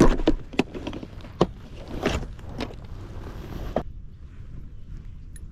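A series of about six knocks and clunks on a fishing kayak, the last about four seconds in, over a low steady rumble.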